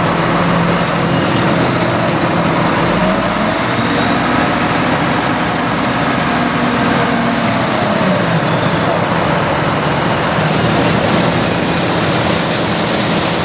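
Heavy diesel road-paving machinery running steadily, with one engine's pitch rising and falling between about four and eight seconds in.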